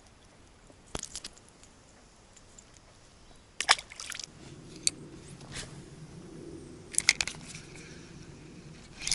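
Ultralight spinning rod and reel in use: a few sharp clicks, then from about halfway a faint steady whir as the reel is wound in to retrieve the spinner.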